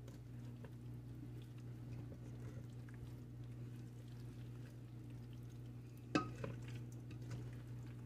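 Silicone spatula folding boiled potato cubes into a mayonnaise dressing in a stainless steel bowl: faint stirring and scraping over a steady low hum, with one sharp knock about six seconds in.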